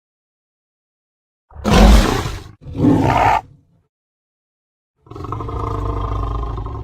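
Big cat roaring: two short, loud roars back to back about a second and a half in, then after a pause a longer, lower drawn-out roar beginning about five seconds in.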